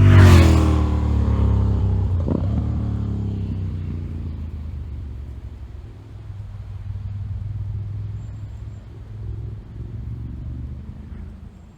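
Honda VTR1000 Firestorm's 90-degree V-twin, through Remus end cans, passing close by at speed. Its note peaks and falls in pitch as it goes past, changes briefly about two seconds in, then fades as a low rumble into the distance.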